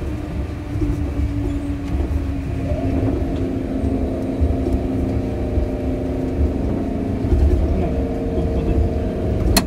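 Osaka Monorail 1000-series train running between stations, heard from inside the car: a steady low rumble from the running gear, with several steady motor tones humming over it that grow stronger from about three seconds in. A single sharp click near the end.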